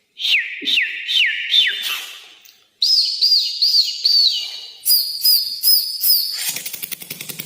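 Bird-like chirping: quick high chirps, each sweeping downward in pitch. There are about four in the first two seconds, then after a short gap a longer run of higher, shorter chirps, and a rapid clicking rattle near the end.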